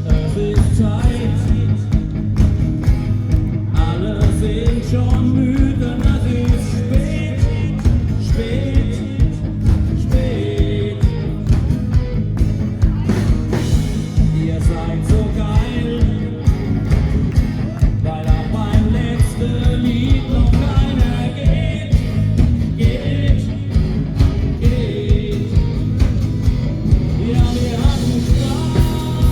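Live band playing an upbeat rock-and-roll song, with guitar, a steady drum beat and sung vocals.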